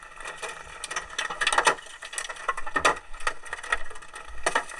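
Large hailstones pounding a car's windshield and roof, heard from inside the cabin: irregular sharp bangs, a few each second.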